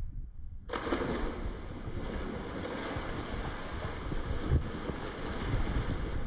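Cannonball jump into a swimming pool, slowed down with slow-motion footage. The splash comes in suddenly just under a second in and draws out into a long, even rush of water that runs for several seconds.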